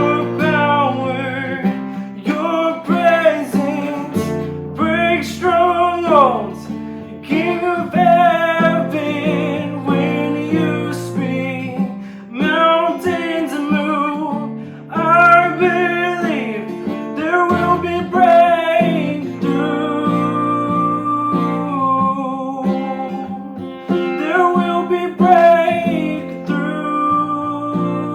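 Worship song: strummed acoustic guitar over held bass notes, with a sung melody in phrases of a few seconds.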